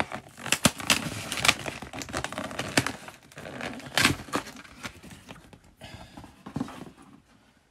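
Cardboard box lid being worked loose and slid off, cardboard scraping and rubbing on cardboard in a run of sharp scrapes and rustles. The loudest scrape comes about four seconds in, and the sound dies away near the end.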